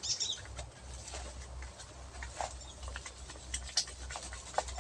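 Leaves and twigs rustling and crackling as a bamboo pole with a net bag is worked against a weaver-ant nest in the tree canopy: scattered light clicks over a low rumble.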